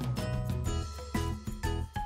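Instrumental background music with a steady bass line and new notes starting about twice a second.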